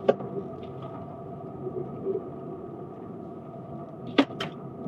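Steady road and engine noise inside a moving car's cabin, with a sharp click near the start and two quick clicks about four seconds in.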